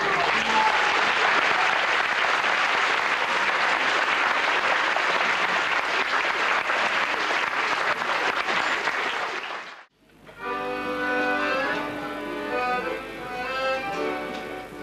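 Audience applauding steadily for about nine seconds, then cut off abruptly. After a moment's silence, an accordion starts playing a slow melody.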